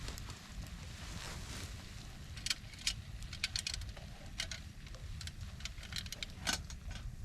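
A scatter of sharp clicks and crackles over a low, steady rumble of wind on the microphone.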